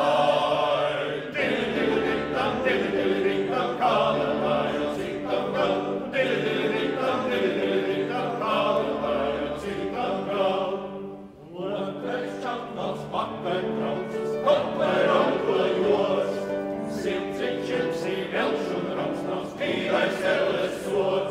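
A men's vocal ensemble singing in harmony, with a short break between phrases about halfway through.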